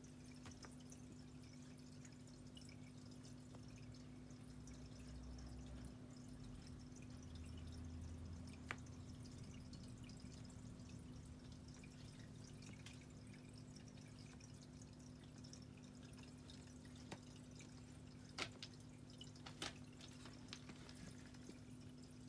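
Near silence: room tone with a faint steady hum and a few short, soft clicks or taps, several of them close together near the end.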